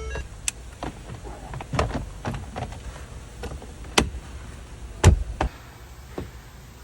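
Irregular clicks and knocks of a part being handled and fitted back into place on a car, with a sharp knock about four seconds in and a louder one about five seconds in, over a low steady hum.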